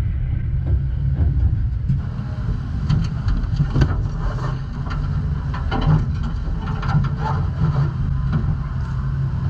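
Knocks, clicks and rustling as a driver unbuckles and climbs out of a dirt late model race car's cockpit, gripping the roll-cage tubes, over a steady low rumble.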